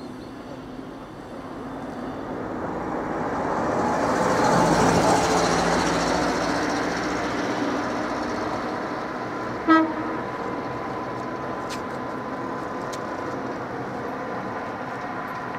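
Street traffic: a vehicle drives past close by, its noise swelling and fading over a few seconds, then a single short vehicle horn toot about ten seconds in.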